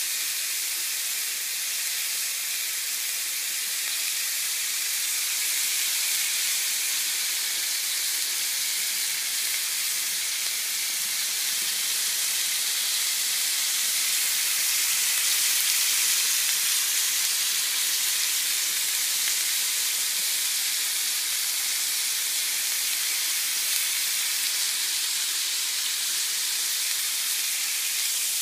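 Pork chops sizzling in a cast-iron grill pan: a steady frying hiss.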